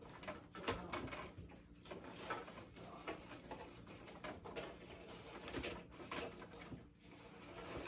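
Cloth rustling and light knocks of handling as a costume is pulled onto an animatronic figure's frame, in irregular bursts, with a faint steady hum underneath.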